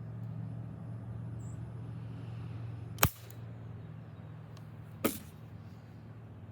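Two sharp BB gun shots about two seconds apart, over a steady low hum.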